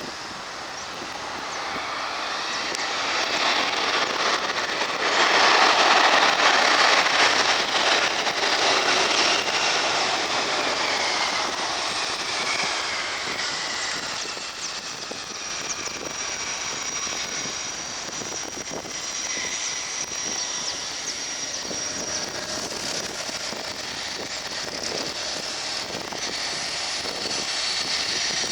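Cessna 680 Citation Sovereign business jet's turbofan engines on landing. The jet noise swells to its loudest about five to eight seconds in, with falling whines. It then eases to a steadier, lower level with a thin, high, steady whine.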